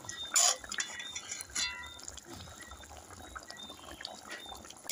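Liquid moving in a cooking pot of fish and okra broth, with a sharp knock about half a second in and a short ringing metal clink at about a second and a half.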